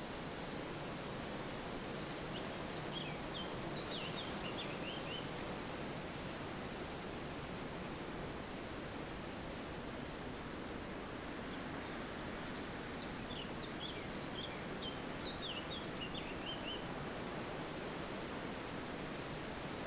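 Steady rushing of wind through forest trees, with a small bird twittering in two runs of quick, high chirps: a few seconds in and again past the middle.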